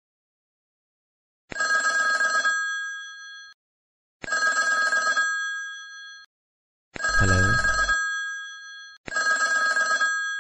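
A phone ringing: four identical electronic rings of about two seconds each, separated by short silences. A short low sound, falling in pitch, overlaps the third ring.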